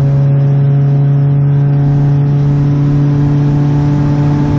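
Car engine running at a steady speed, a loud, even drone that holds one pitch.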